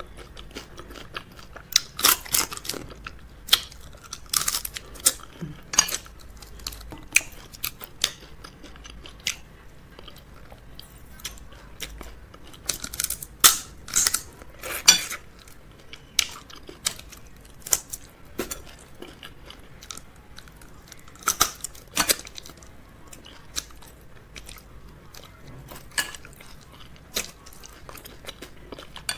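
Close-miked eating sounds from a meal of fufu and okra soup with crab: chewing broken by many sharp, irregular crunches and clicks, coming in clusters.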